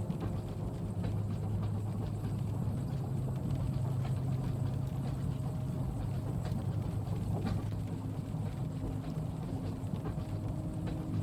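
Inside a train carriage: the steady low rumble of the train running, with light rain on the window and faint scattered ticks.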